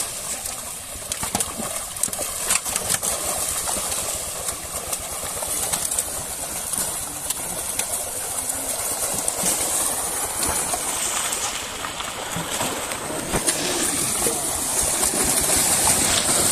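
Many fish thrashing and splashing inside a seine net as it is hauled closed in a pond, a dense churning of water with frequent sharp slaps. The splashing grows louder near the end.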